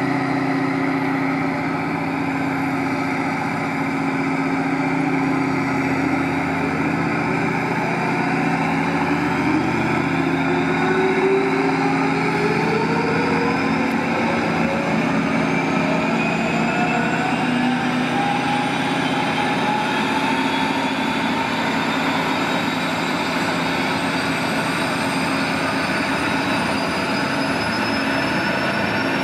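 Gas turbine of a Boeing Jetfoil 929-115 hydrofoil ferry starting up: a whine that sets in about eight seconds in and rises steadily in pitch through the rest, over a steady low machinery hum.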